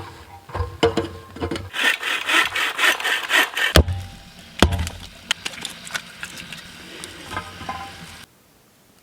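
Saw cutting through wood, with short rasping strokes and knocks. The sound stops abruptly a second before the end.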